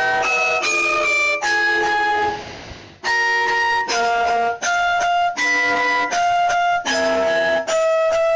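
EAS-style alarm tune: a melody of held notes changing pitch about every half second. It fades out about two seconds in and starts up again after a short gap.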